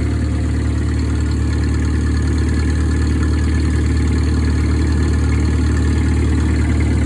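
International Harvester Cub Lo-Boy 154 tractor's four-cylinder gasoline engine idling steadily.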